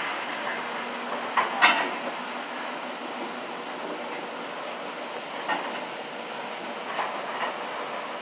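Freight cars of a slow-moving freight train rolling, a steady rumble of wheels on rail with several sharp metallic clanks, the loudest about one and a half seconds in, and a brief high wheel squeal near the middle.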